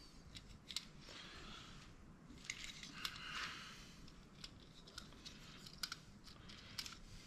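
Faint clicks and scraping of small plastic and metal parts being handled and pried at while a dome security camera's motor and belt assembly is taken apart. Irregular sharp ticks come a few seconds apart, with short stretches of scratchy rubbing between them.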